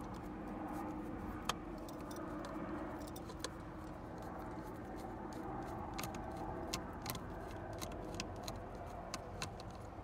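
Screwdriver working on small screws and parts inside an opened steering column: irregular light metallic clicks and ticks, a couple of them sharper, over a steady faint background hum.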